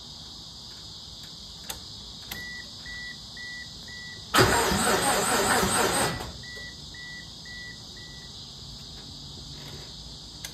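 Starter cranking a 420A four-cylinder engine for about two seconds without it firing: the crank, no spark, no start condition. Four short high beeps come before and four after the cranking, with a couple of clicks just before the first beeps.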